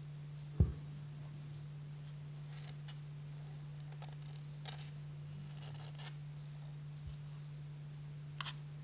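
Kittens scuffling and wrestling on a cloth surface: faint scratchy rustles and clicks of paws and claws over a steady low hum. A dull thump about half a second in is the loudest sound, and two sharp ticks come near the end.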